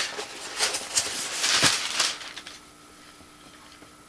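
Plastic packaging crinkling, with small clicks and knocks as accessories are handled and unwrapped; it stops about two seconds in.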